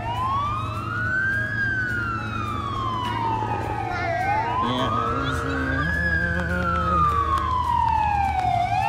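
Fire truck siren wailing, rising quickly and falling slowly in pitch about every four seconds. A lower steady tone sounds for about two seconds midway, over a steady low rumble.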